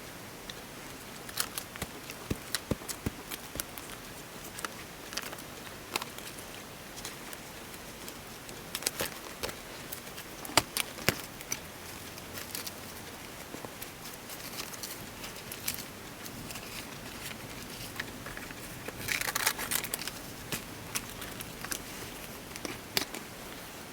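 Scissors snipping magazine paper and paper being handled: scattered sharp snips and clicks, with a denser run of crinkling about nineteen seconds in, over a steady faint hiss.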